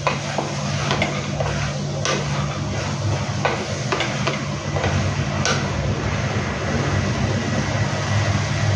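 Wooden spatula stirring sprouted moong beans and masala in a steel pressure cooker, with short knocks and scrapes against the pot about once a second, over a steady low hum and a frying sizzle.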